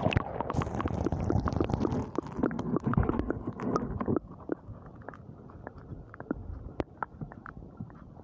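River water heard through a submerged camera: a sudden muffled plunge, then dense gurgling with many sharp clicks for about four seconds, easing to a quieter underwater rumble with scattered clicks.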